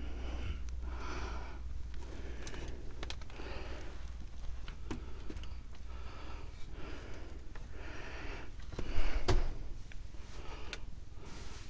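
A person breathing hard close to the microphone, about one breath a second, with scattered small clicks and a single thump about nine seconds in.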